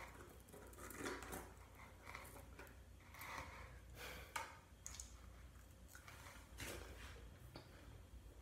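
Near silence: room tone with a steady low hum and a few faint, short ticks and rustles scattered through it.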